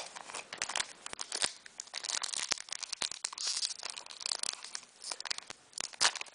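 Foil wrapper of a Japanese Pokémon booster pack crinkling and crackling as fingers work at it to tear it open, a rapid run of sharp crackles and rustles.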